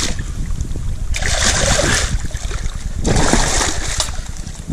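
Hooked snapper thrashing and splashing at the water's surface as it is drawn in against the rocks, in two loud bursts of splashing about a second in and again around three seconds, over a low rumble of wind on the microphone.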